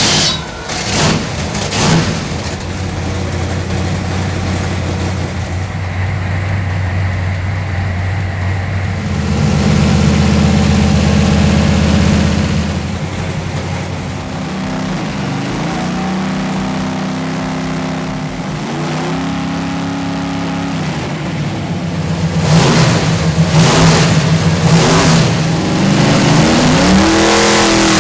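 Stroked 498-cubic-inch Ford 427 FE top-oiler V8 running on an engine dyno: it idles steadily, then is revved up and down several times, louder over the last several seconds.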